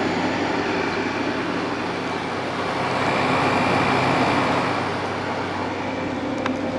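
A 1970s Thomas Edison 6000 BTU window air conditioner running on cool: the steady hum of its compressor under the rush of the fan, the compressor sounding good. The air noise swells slightly midway, and there is a faint click near the end.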